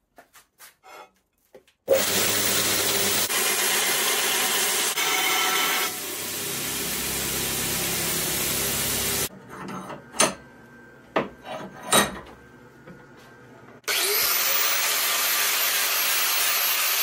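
A belt grinder grinding a small mild-steel block, steady for about seven seconds, as the block is shaped by stock removal. A few light knocks and clicks follow, then an angle grinder spins up and grinds the steel steadily.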